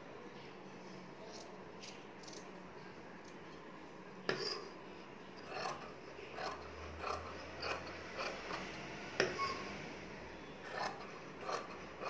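Scissors snipping through cotton dress fabric: a run of short crisp snips, starting about four seconds in and going on at roughly one a second.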